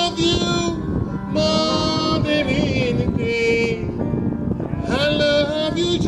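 Gospel worship singing: a voice holding long, slow notes of a worship song in three phrases, with short breaks between them.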